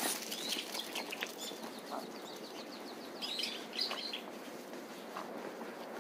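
Wild birds chirping and calling in bare woodland: scattered short high chirps in the first second or so, a quick run of repeated notes, then a louder cluster of calls a little past the middle, over a steady outdoor background.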